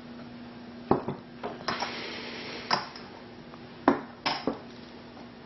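Glass bowls and small ceramic ramekins being moved about on a wooden cutting board, with a plastic spatula set down: about half a dozen separate knocks and clinks.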